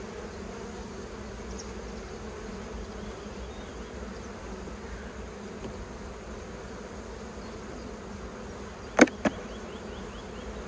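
Honeybees buzzing steadily around an opened Buckfast colony during a frame inspection. Near the end come two sharp knocks in quick succession.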